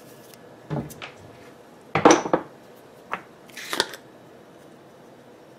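A spice jar being shaken and tapped to sprinkle powder into a food processor bowl: a few short rattles and knocks, the loudest about two seconds in.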